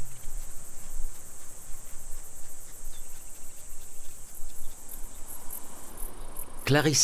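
Insects chirring steadily: a high, continuous buzz made of rapid, even pulses, over a faint uneven low rumble.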